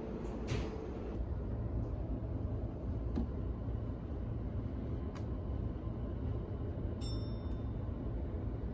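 Commuter train cabin running noise: a steady low rumble, with a few light clicks and a short high ding about seven seconds in.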